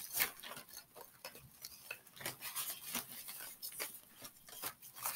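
Small tangled items being worked apart by hand, giving light, irregular clicks and taps with soft rubbing between them.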